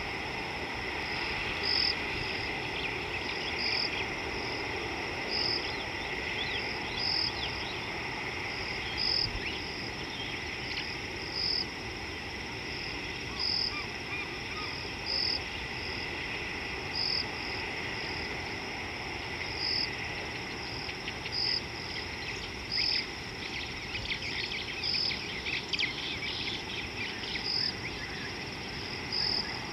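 Night insects calling: one short, high chirp repeats about every one and a half to two seconds over a steady background hiss.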